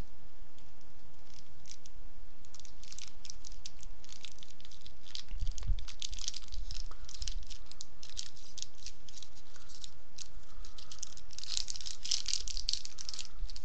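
Candy bar wrapper crinkling and crackling in the hands as it is pulled open and peeled off the bar, in irregular clusters of small crackles, busiest in the middle and again near the end.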